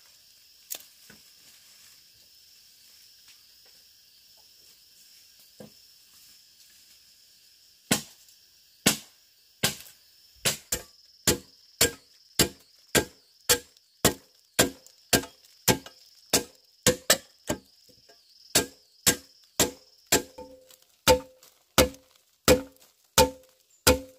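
Regular blows of a hand tool, about one and a half a second, starting about eight seconds in; the later blows have a short ringing note. A steady insect chorus runs underneath.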